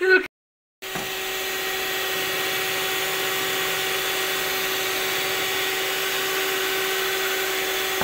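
Anex electric hand mixer running at a steady speed with an even motor hum, its beaters whisking cake batter. It starts about a second in, after a brief dropout.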